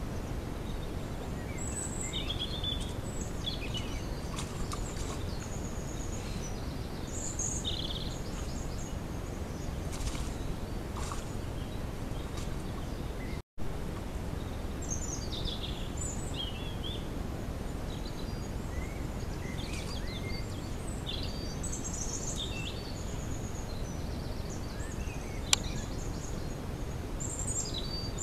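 Steady hiss and ambient noise from a camera trap's built-in microphone, with scattered short, high chirping calls. The sound cuts out for an instant about halfway, and there is a single sharp click near the end.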